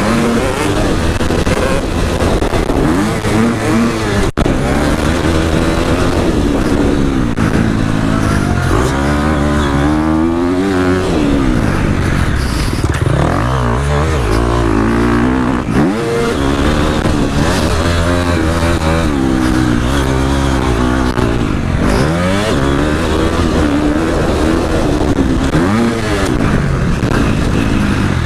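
Husqvarna motocross bike's engine heard from on board, revving hard and dropping again over and over as the rider accelerates, shifts and brakes round a dirt track, its pitch climbing and falling every second or two.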